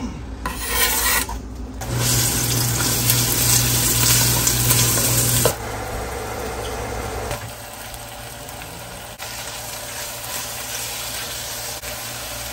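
Food frying in hot oil in a pot: chopped onion and then ground beef sizzling. The sizzle is loudest early on and drops sharply about five and a half seconds in, then carries on more quietly.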